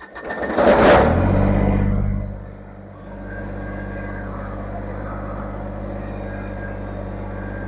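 An engine starts, runs up loudly for a moment, then settles to a steady idle about three seconds in.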